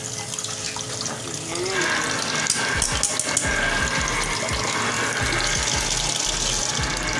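Tap water pouring in a steady stream into a pot of soaking mung beans, splashing onto the water's surface; the stream grows louder about two seconds in.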